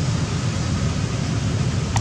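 Steady outdoor background noise: a continuous low rumble with a hiss above it, and no distinct event except a faint click at the very end.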